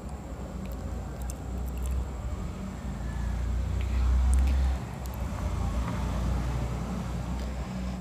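Plastic basket-weaving wire rustling, with faint clicks as strands are pulled through the weave and knotted by hand. Under it runs a low rumble that swells about three seconds in and cuts off abruptly near five seconds.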